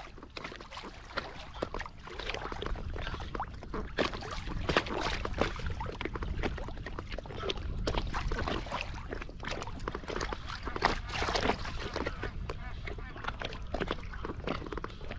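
Water splashing and sloshing close by, a dense run of small irregular splashes and knocks.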